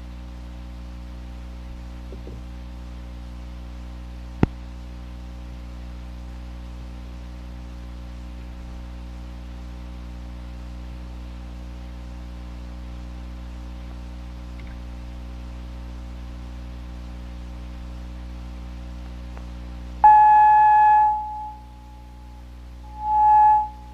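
Dead air on a radio broadcast where an announced record should be playing: only a steady low hum, with a single click about four seconds in. About twenty seconds in, a loud steady electronic tone sounds for a second or so, stops, and sounds again briefly near the end.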